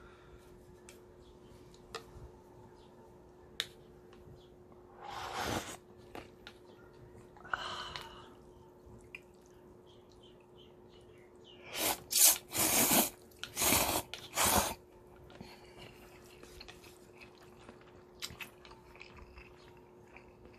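Noodle soup being eaten with wooden chopsticks: small clicks and taps against the bowl, with a few short slurps of noodles and broth and a louder run of slurps just past the middle.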